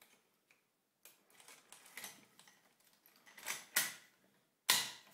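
Metal clicks and clatter of an MG42-pattern machine gun being loaded: the cartridge belt is handled into the feed. There are scattered light clicks, a few louder strokes, and one sharp metal clack near the end, the loudest sound.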